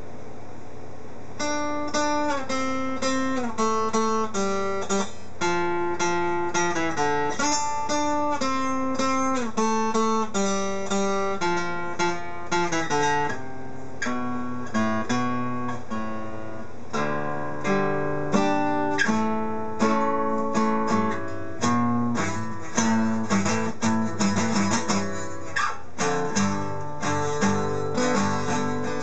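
Acoustic guitar picking a melody of single notes and chords, starting about a second and a half in.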